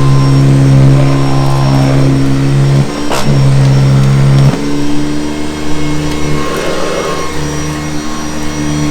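Hoover Convertible U4387 upright vacuum cleaner running with a loud, steady drone. There is a short knock about three seconds in, and the drone changes tone about halfway through.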